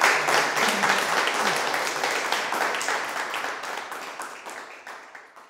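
Audience applauding, starting strong and dying away over about five seconds.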